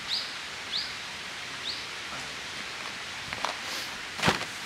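Outdoor ambience with a steady background hiss and a small bird's short, downward-sliding chirps, three within the first two seconds. A single sharp knock near the end is the loudest sound.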